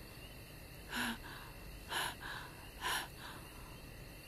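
A woman gasping for breath in distress: three sharp gasps about a second apart, each followed by a softer breath.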